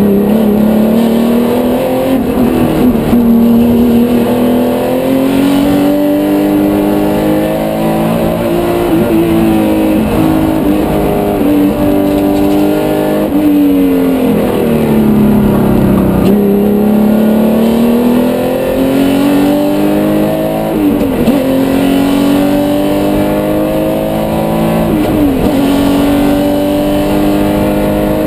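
Porsche 911 race car's 3.8-litre flat-six heard from inside the cabin, pulling hard through the gears. Its pitch climbs and drops sharply at each gear change, and about halfway through it falls away for a longer stretch before climbing again.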